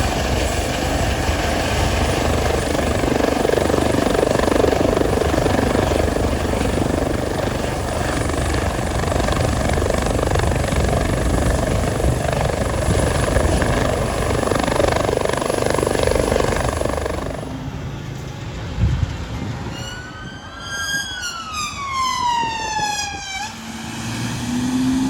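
Loud steady vehicle engine noise for about seventeen seconds, then a siren tone sliding down in pitch over about three seconds, as a siren winds down.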